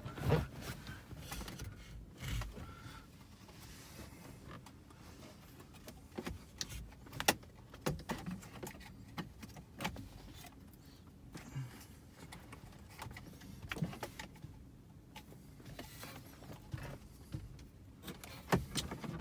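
Scattered clicks and light knocks of hands handling a loose dashboard screen assembly and working at its wiring connector, at irregular moments with quiet handling noise between.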